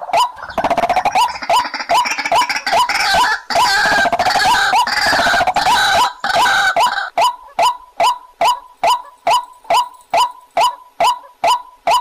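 White-breasted waterhen calling: a steady run of short, sharp notes, about three a second. A second, harsher burst of calling overlaps it from about half a second in until about seven seconds.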